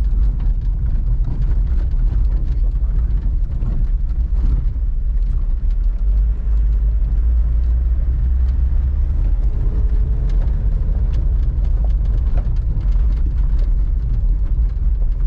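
Car driving on a gravel track, heard from inside the cabin: a steady low road and engine rumble with scattered faint ticks and rattles.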